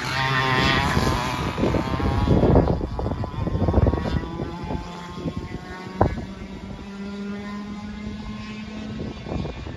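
Two-stroke racing kart engine running at high revs as the kart passes close by and then draws away, its note fading. Bursts of wind noise on the microphone make up the loudest part, and there is a single sharp click a little past halfway.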